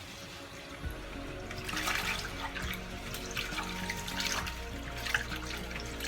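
Water running and splashing irregularly in a kitchen sink, over steady background music.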